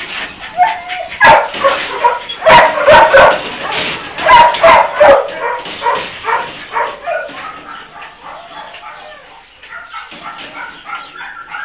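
Several kennelled dogs barking, loud and overlapping for the first five seconds or so, then quieter and more scattered.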